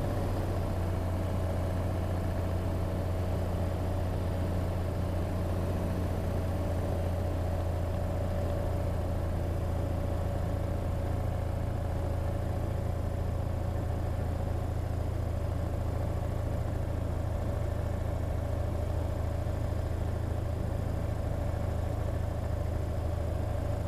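Cessna 182's piston engine and propeller droning steadily in the cabin on final approach, with a steady higher whine that sinks slightly in pitch.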